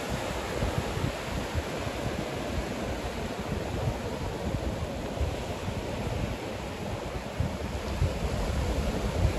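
Ocean surf washing onto the beach, with wind gusting over the microphone in low rumbles.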